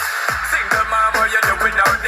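Electronic music with a steady beat: a kick drum thuds about twice a second under a bass line and a bright synth melody.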